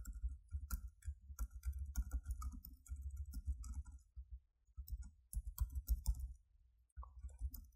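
Computer keyboard typing: quick runs of keystroke clicks, broken by two short pauses.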